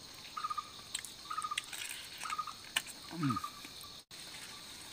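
Insects, crickets by the sound, chirping in short trills about once a second over a steady high insect hiss. A few sharp clicks come through, and about three seconds in there is a short low sound falling in pitch.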